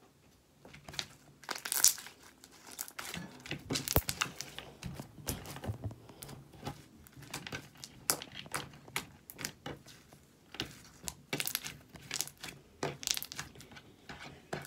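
Slime being squeezed and stretched by hand, making irregular crackling and popping clicks.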